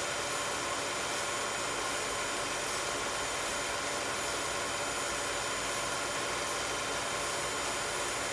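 16mm film projector running: a steady mechanical whir with a constant hum, unchanged throughout.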